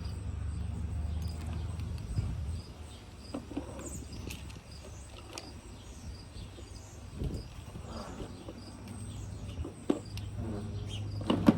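Plastic lip gloss tubes being handled: scattered light clicks and taps, a few seconds apart, over a low steady hum.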